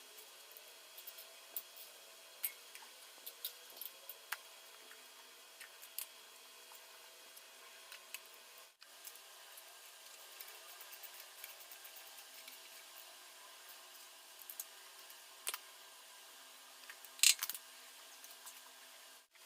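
Faint steady hiss with scattered small clicks and taps of tools and parts being handled during maintenance work, with a louder quick cluster of clicks near the end.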